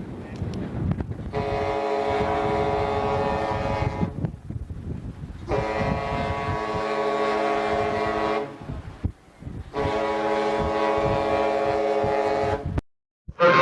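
Ship's horn sounding three long, steady blasts of about three seconds each, with a low rumble in the gaps between them. The last blast cuts off suddenly near the end.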